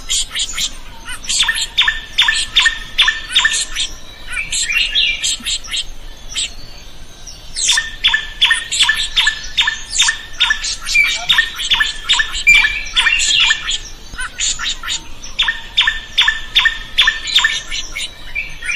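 Drongo singing: three runs of rapid, sharp repeated notes at about five a second, with chattering and short whistles between the runs.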